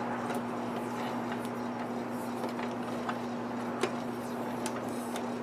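Scattered small clicks and ticks of hands handling wires and tape, over a steady electrical hum.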